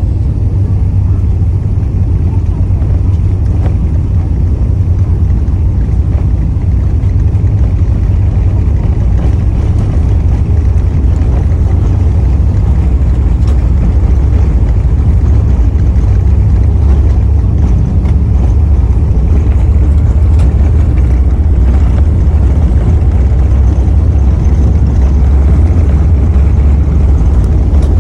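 Cabin noise of an Airbus A380-800 during takeoff: a loud, steady low rumble of the engines at takeoff thrust, growing a little louder about halfway through.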